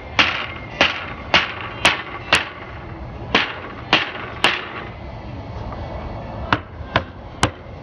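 Rubber mallet striking the 2x4 frame of a hog wire fence panel, knocking it into place between the posts: about a dozen sharp blows in uneven bursts, with a pause of about two seconds before the last three.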